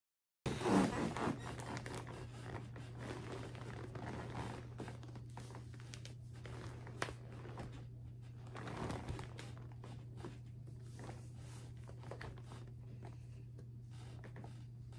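Soft rustling and scraping of plastic packaging and fabric as fuzzy socks are taken out and pulled onto a foot, loudest about a second in, with scattered small clicks. A steady low hum runs underneath.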